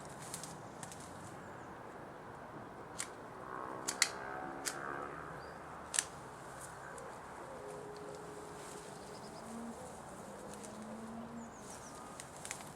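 Quiet outdoor background with a few bird calls and several sharp clicks, the loudest about four and six seconds in; no saw running.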